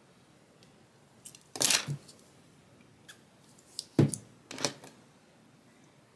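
Hands pressing and rubbing a wig at the hairline, giving short scratchy rustles of hair and wig cap: a burst about a second and a half in and a second, double burst from about four to five seconds in, with a few faint clicks between.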